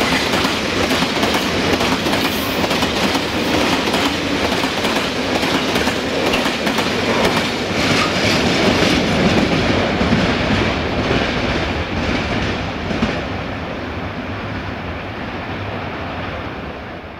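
Wagons of a heavy loaded stone freight train rolling past, wheels clacking over rail joints. The noise eases from about twelve seconds in and fades away near the end as the tail of the train moves off.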